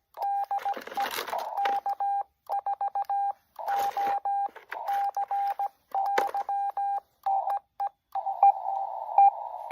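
Amateur radio Morse code (CW): a single steady high tone keyed on and off in quick dots and dashes. It is crossed by three brief bursts of noise. In the last couple of seconds a band of radio hiss comes up behind the tone.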